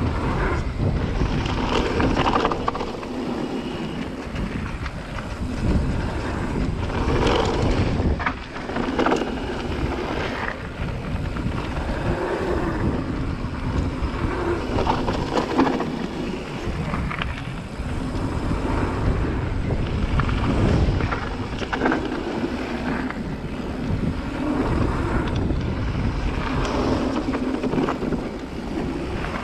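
Cube Stereo 150 TM full-suspension mountain bike riding down a rough dirt trail: wind rushing over the microphone and tyres rolling, with frequent short knocks and rattles from the bike over bumps.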